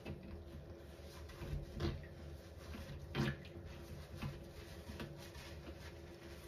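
Wet foam sponges full of soapy cleaner being handled and squeezed over a stainless steel sink: a few soft wet squelches and splashes of liquid, the loudest about three seconds in.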